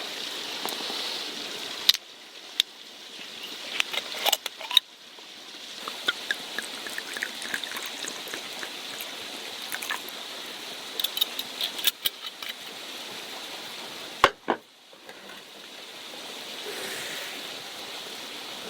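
A sake bottle being opened and poured into a cup: scattered sharp clicks and knocks of the cap and glass, with a gurgling trickle of liquid about six seconds in and a loud knock near the end.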